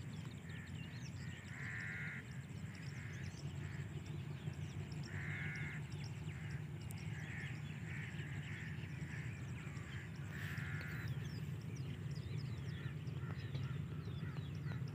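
Crows cawing in the open countryside, with three loudest caws about two, five and ten seconds in and weaker ones between, small birds chirping in the background, and a low steady rumble underneath.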